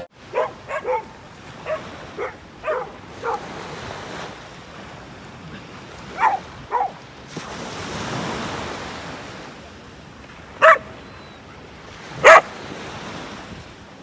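A dog barking in short yaps: a quick string of them in the first few seconds, a pair about six seconds in, and two loud barks near the end. Under them, small waves wash onto the sand, one swelling up about eight seconds in.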